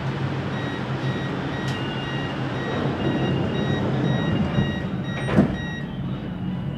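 Door-closing warning beeps of a Siemens Inspiro MRT train, a repeating beep about twice a second, ending in a sharp thud as the doors shut about five and a half seconds in, over the train's steady low hum.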